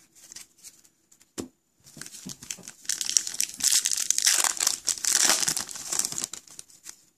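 Foil trading-card pack wrapper being torn open and crinkled: a dense crackling rustle that starts about two seconds in and dies away near the end, after a few light handling clicks.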